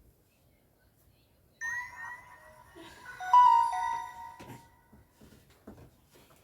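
A stock ringtone of a Samsung Galaxy Star GT-S5282 playing through the phone's speaker: a short melody of a few sustained notes, starting about one and a half seconds in, loudest in the middle and fading out after about three seconds. A few faint clicks follow near the end.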